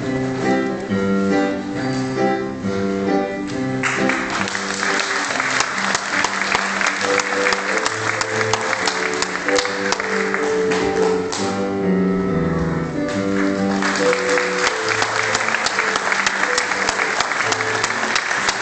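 Instrumental music playing with held notes. Many people clapping over it, joining in about four seconds in, breaking off for a couple of seconds about twelve seconds in, then clapping again.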